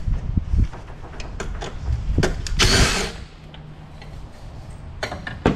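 A cordless impact driver runs in a short burst about two and a half seconds in, among scattered clicks and knocks of tools and metal parts being handled. A single sharp knock comes near the end.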